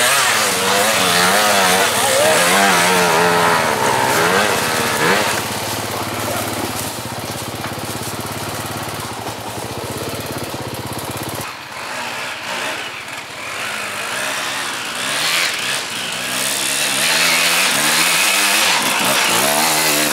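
Off-road dirt bike engines revving up and down in uneven bursts as the bikes climb a steep slope. The sound changes abruptly about halfway through, then the revving picks up again near the end.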